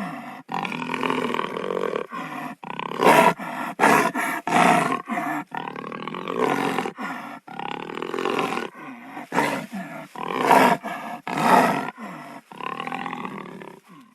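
A wild cat calling over and over: a rapid string of short, pitched, throaty calls, some much louder than others, that ends abruptly.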